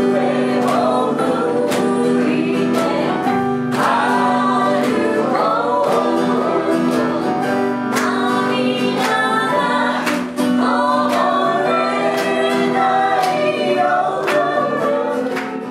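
A pop song sung by several voices together over instrumental backing with a steady beat, fading out near the end.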